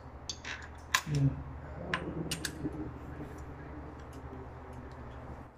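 Scattered light clicks and ticks of a small metal fitting and hand tool being worked on a cable termination head, over a steady low hum.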